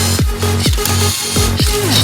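Electronic dance music with a kick drum about twice a second over a steady bass line.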